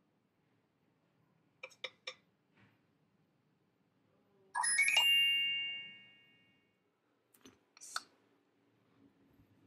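Nokia 603 smartphone playing short alert tones: a quick triple blip about two seconds in, then a bright bell-like chime that rings on for about a second and a half, and two short blips near the end.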